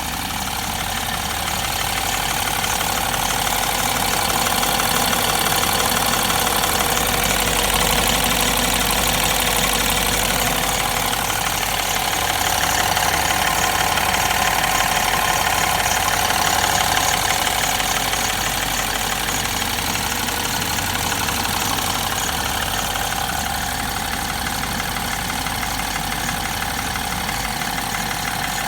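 BMW F30's N13 1.6-litre turbocharged four-cylinder petrol engine idling warm, with a shuffling, scraping noise like rubber rubbing on something. The noise appears only once the engine is warm and keeps going with the accessory drive belt removed, so it does not come from the belt drive.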